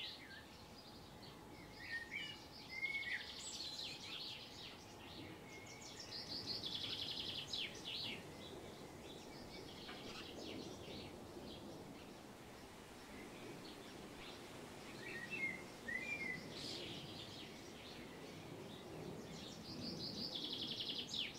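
Songbirds singing: a high trilling phrase repeats every few seconds, with short chirps between, over a faint steady outdoor background hiss.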